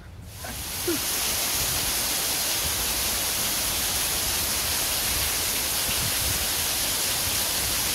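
Heavy rain downpour, water streaming off a roof edge and splashing onto wet paving in a dense, steady hiss that swells up within the first second.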